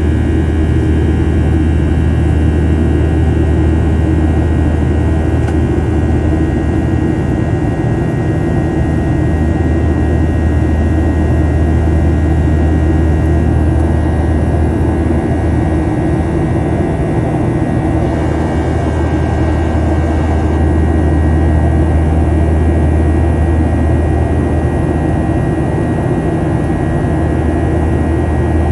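Boeing 737-800's CFM56-7B24 turbofan engines running at climb power after takeoff, heard inside the cabin beside the wing: a loud, steady drone with a deep low rumble and a few constant whining tones above it.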